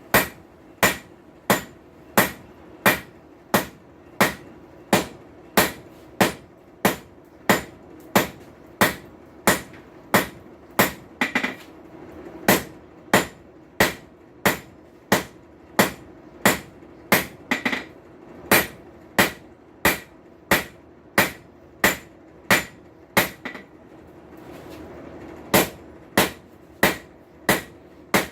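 Hand hammer striking hot steel on an anvil in a steady rhythm of about three blows every two seconds, each blow ringing briefly, with a short pause near the end before the blows resume. A steady low hum runs underneath.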